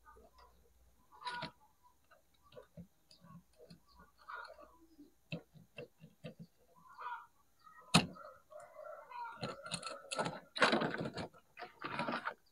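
Small clicks and taps of a hand mixer's motor assembly and plastic housing being handled. A sharp knock comes about eight seconds in, followed by a busier stretch of rattling and scraping near the end.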